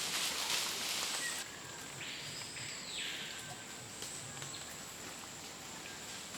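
Outdoor natural ambience: a steady high-pitched insect drone over a faint background hiss, with a brief rush of hiss about two seconds in.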